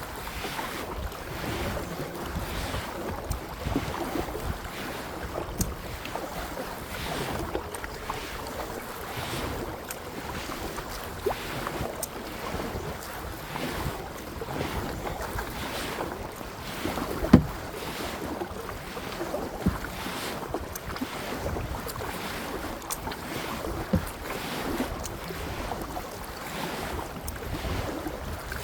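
Kayak paddle strokes dipping and splashing in the water, with wind noise on the microphone and a sharp knock about seventeen seconds in.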